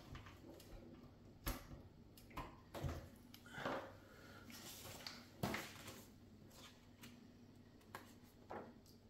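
Light clicks and taps of small model parts being handled on a workbench, a few separate knocks with the loudest about five and a half seconds in, and a brief rustle in between.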